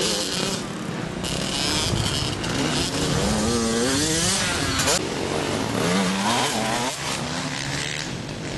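Small youth dirt bikes riding, more than one engine heard at once. Their pitch climbs and drops again and again as the riders twist the throttle and shift.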